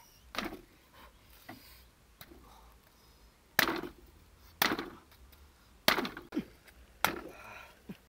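A large chopping knife striking through a roasted chicken into a thick wooden chopping block: four heavy chops about a second apart in the second half, after a lighter knock near the start.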